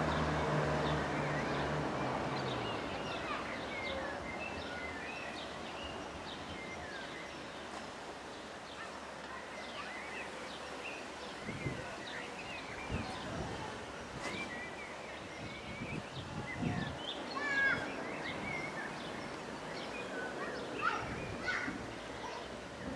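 Small birds singing and calling in short chirps throughout. Under them, at the start, a diesel train engine hums and fades out within the first few seconds.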